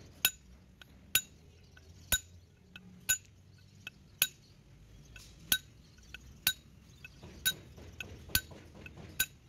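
Hand hammer striking steel to drive a gear down onto a ZF gearbox main shaft: about ten sharp, ringing metal clinks, roughly one a second.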